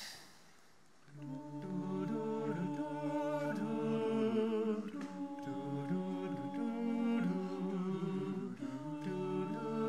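A six-voice a cappella group singing held chords in close harmony, coming in about a second in after a brief soft knock.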